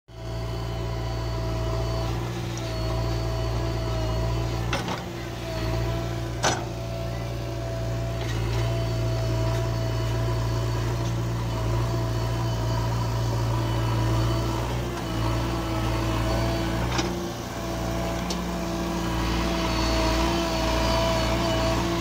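JCB 3DX backhoe loader's diesel engine running steadily while the backhoe digs soil, with a steady whine over the engine note. A few sharp knocks are heard, the loudest about six and a half seconds in.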